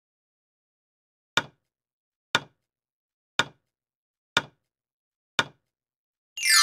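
Countdown-timer sound effect: five short, sharp ticks, about one a second, each with a low knock in it. Near the end a rising sweep runs into a bright chime of several held tones, marking the end of the countdown.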